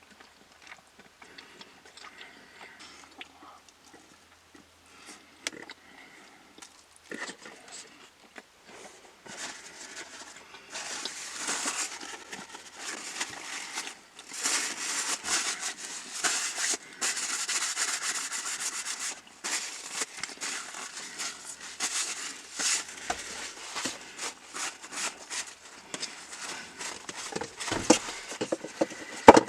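Eating sounds close to the microphone: faint chewing and small mouth clicks, then, from about ten seconds in, a long stretch of crinkling and rustling of fast-food paper and wrappers. A sharp click comes near the end.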